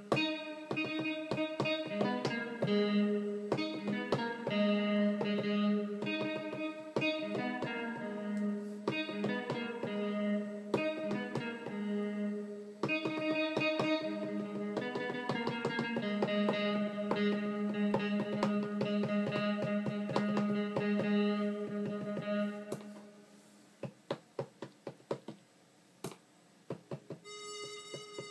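Electronic music played on a Native Instruments Maschine MK2: a looping pattern of plucked, keyboard-like notes over a steady low note. About three-quarters of the way through it drops out to sparse clicks, and a new run of notes starts near the end.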